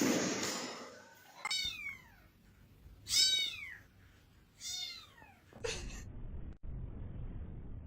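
A cat meowing three times, each meow falling in pitch; the middle one is the loudest.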